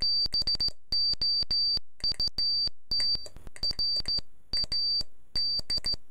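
Morse code sent on a straight key: a high-pitched beep tone keyed on and off in dots and dashes, with a sharp click as each element starts and stops.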